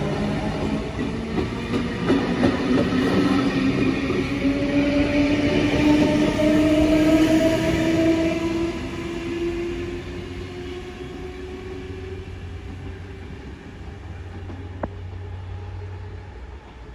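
NSW TrainLink V set double-deck intercity electric train moving off along the platform: its motor whine climbs slowly in pitch as it gathers speed, over the rumble of the carriages on the rails, then fades away after about nine seconds. A single sharp click comes near the end.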